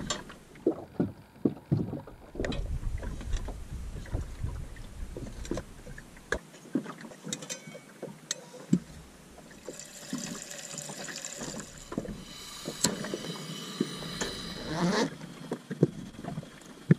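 Scattered knocks and clicks of things being handled, with a stretch of hissing about ten to fifteen seconds in.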